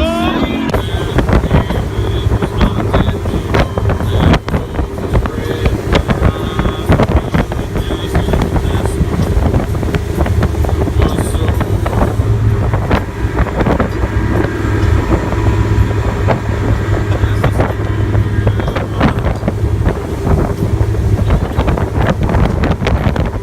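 Motorboat under way: a steady low engine drone under the rush of wind buffeting the microphone.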